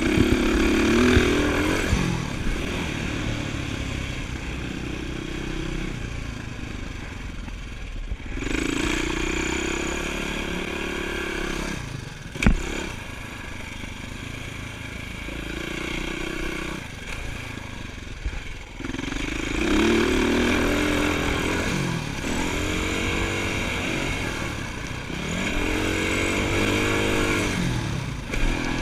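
Dirt bike engine heard from on board, revving up and dropping off again and again as the rider accelerates and backs off around the motocross track. There is a steady rushing noise throughout, and one sharp knock near the middle.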